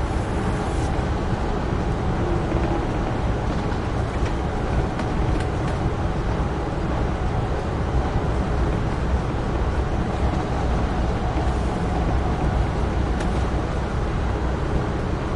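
Amtrak Northeast Regional passenger train running at speed: a steady rumble of wheels on rail, with a faint steady hum and a few light ticks.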